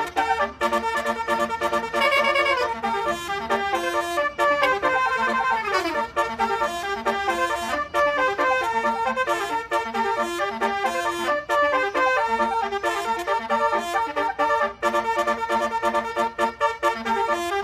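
Basuri telolet horn, a set of multi-trumpet musical air horns, playing a fast tune of quick horn notes over a repeating low pulsing part, with a falling slide about five seconds in.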